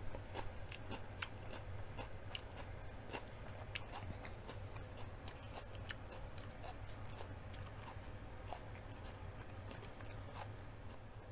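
Close-miked chewing of crunchy food: irregular crisp crunches and small mouth clicks, the loudest right at the start, over a low steady hum.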